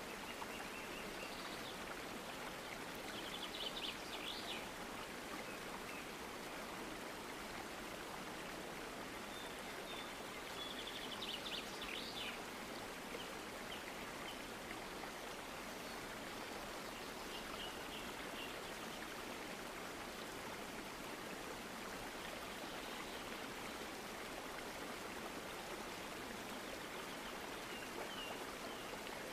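Steady background hiss with faint, short, high chirping trills every several seconds, loudest about four and about twelve seconds in.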